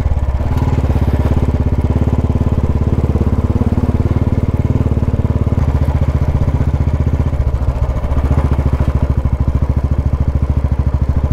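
Motorcycle engine running steadily under way on a dirt track, with a rapid, even beat of firing pulses.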